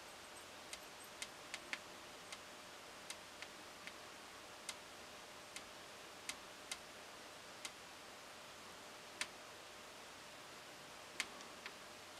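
Faint, irregular small clicks, about fifteen spread unevenly, over a steady low hiss.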